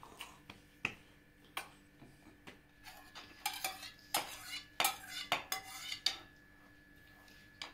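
Metal spoon clinking and scraping against a bowl as its contents are scraped out into a larger bowl: scattered sharp knocks, then short scrapes that stop about six seconds in.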